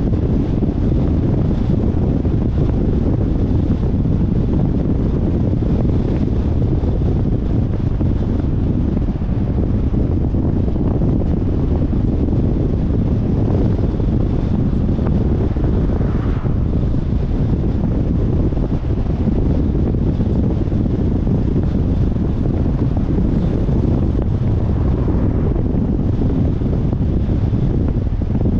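Steady low wind rumble on a car-mounted action camera's microphone while driving, with road and vehicle noise underneath.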